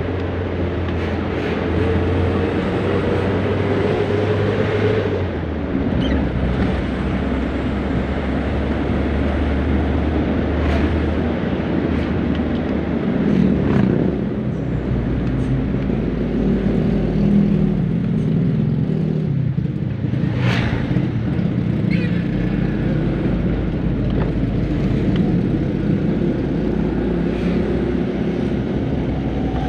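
Isuzu Elf minibus diesel engine running steadily on the road, a continuous low drone whose pitch steps down a few times: about five seconds in, again around the middle, and near the three-quarter mark.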